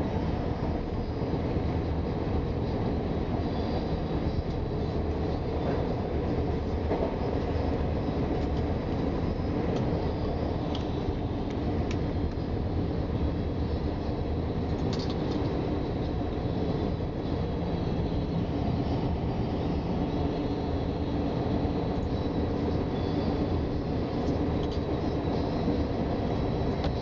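Steady running noise of a Ferrovie Nord commuter train heard from inside the carriage: the low rumble of wheels on rail at speed, with a few faint clicks.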